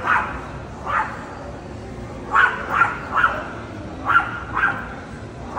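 A dog barking: about seven short, high barks, some single and some in quick twos and threes.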